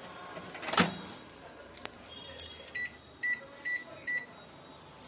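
Microwave oven keypad beeping four times, short high beeps about two a second, as its control-panel buttons are pressed to set it. A single thump comes about a second in.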